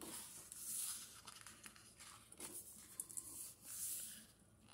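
Thick pages of a hardcover comic book being flipped by hand: a soft paper swish about a second in and another near the end, with light rustling between.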